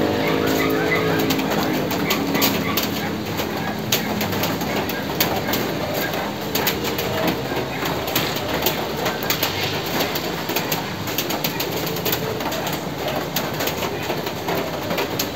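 Steady rain falling, with close drops tapping sharply and irregularly.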